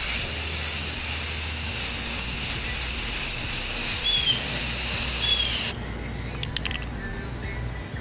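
Aerosol spray can of primer spraying in one long steady hiss, laying a light coat of primer over a bare spot; it cuts off suddenly near six seconds in. A bird chirps twice over the hiss.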